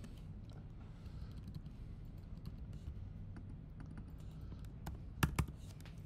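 Computer keyboard typing: scattered light keystrokes, with two louder key presses close together near the end, over a faint low hum.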